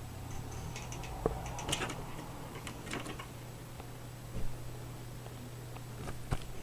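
A steady low hum with a few faint, scattered clicks and light rustles, about one or two a second.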